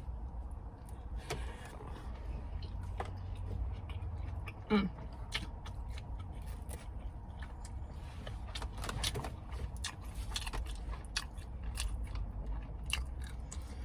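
Someone eating: chewing with scattered small clicks and crinkles of food and wrapper handling, over a steady low rumble inside a car. A short hum of voice about five seconds in.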